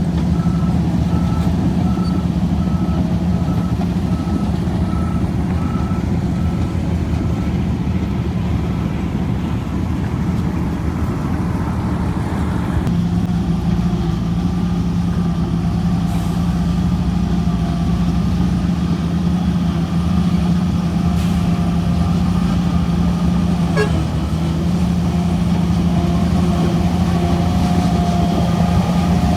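Shantui DH17C3 bulldozer's diesel engine running steadily while it works soil, with its reversing alarm beeping at an even pace for the first several seconds. From about halfway, steady higher-pitched tones sit over the engine.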